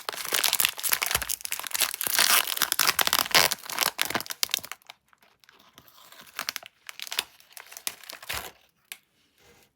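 LU Prince biscuit packaging crinkling and tearing as it is handled and opened. The crinkling is dense and loud for the first four and a half seconds, then turns into sparser, quieter crinkles that stop near the end.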